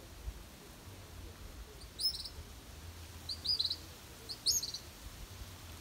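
A hungry young bird begging for food, giving three short runs of quick, high chirps about a second apart.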